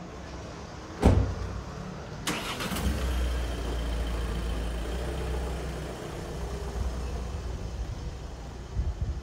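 A sharp bang about a second in, then a motor vehicle's engine running with a steady low rumble close by.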